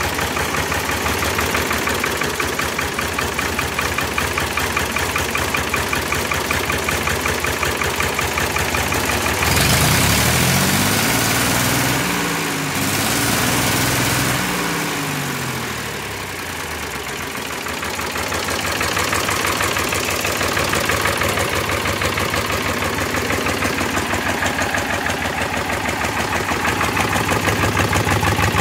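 Ford 3000 tractor's three-cylinder diesel engine idling steadily. About a third of the way in it is revved up, held briefly, then let back down to idle.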